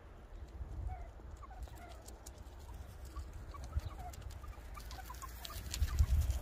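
Meerkats giving many short, soft chirping calls in quick succession while foraging, over low wind rumble on the microphone. Near the end come a few crunching steps on gravel.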